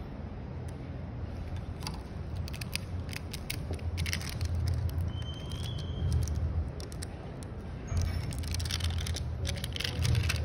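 Crinkling and crackling of a thin plastic protective film being handled and lifted off a phone replacement screen, with scattered small clicks, busiest near the end, over a steady low hum.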